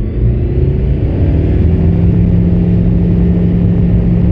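Rotax 912 Xtra flat-four engine and propeller of a KFA Bushbaby bushplane going up to full takeoff power, heard from inside the cockpit. The pitch rises over the first second or two, then holds steady at full throttle as the plane starts its takeoff roll.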